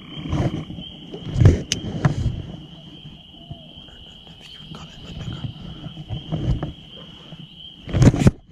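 Steady high-pitched insect trilling, like crickets, with irregular rustling and thumps from close by and a louder knock near the end.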